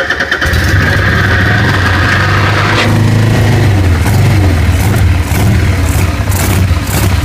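Harley-Davidson Sportster 883 V-twin engine being started: a high starter whine for the first few seconds as the engine catches, then the engine running unevenly, a misfire that keeps it from idling.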